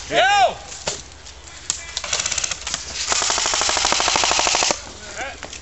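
Airsoft L85 electric rifle firing on full auto: a short burst about two seconds in, then a longer burst of about a second and a half, rapid evenly spaced shots. A brief shout at the very start.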